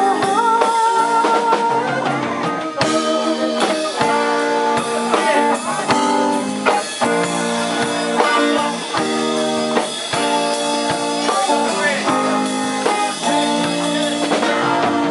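Live band playing: two electric guitars over a drum kit, with steady drum hits under held and bending guitar notes.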